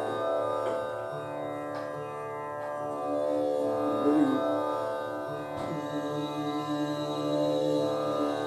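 Tanpura-style drone: strings plucked in turn, their long ringing tones merging into a steady sustained chord, with a low steady note joining about a second in and again near six seconds.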